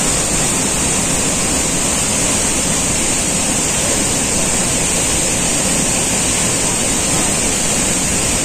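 Waterfall and rapids in full rainy-season flood, water rushing and churning over rock in a steady, unbroken wash of noise, with a steady high hiss above it.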